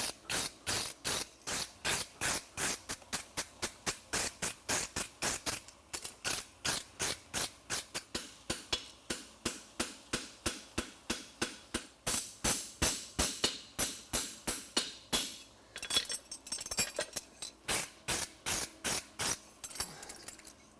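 Farrier's hammer striking a steel horseshoe on an anvil in a steady rhythm of about three blows a second, flattening the shoe's surface; the blows falter briefly about two-thirds of the way through, then carry on.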